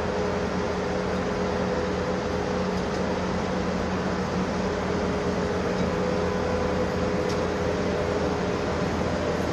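Brown Bear windrow machine running steadily as it turns poultry litter into a compost windrow, a constant mechanical drone with a steady hum.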